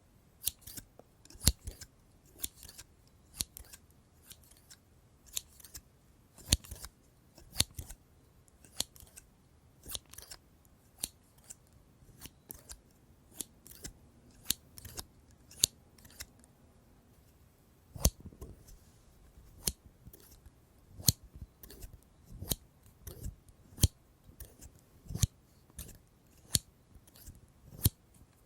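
Scissors snipping: sharp single cuts at an uneven pace, roughly one or two a second, with short pauses between runs.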